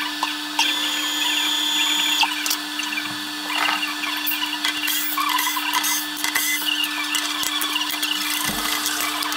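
Workshop sound played back six times fast: a steady machine hum under rapid clicks and clatter as a wooden knife-handle scale and its screws are handled on a CNC router table.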